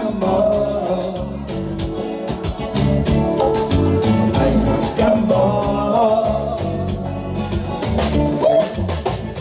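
Live band playing, with a man singing over drums, bass guitar and keyboard, the drum beat steady throughout.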